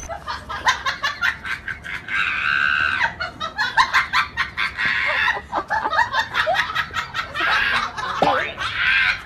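Guinea pigs making quick high-pitched squeaks and chatter, over a dense run of rapid small clicks.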